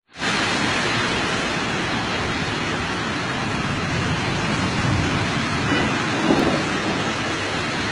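Heavy rain and vehicles ploughing through a flooded street, their tyres throwing up spray: a steady rushing hiss of water.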